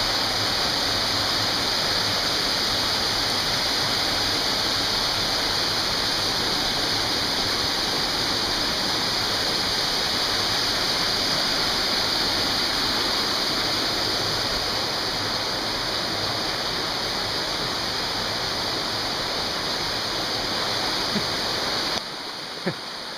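Stream water rushing and splashing steadily over boulders in small cascades. The level steps down a little near the end.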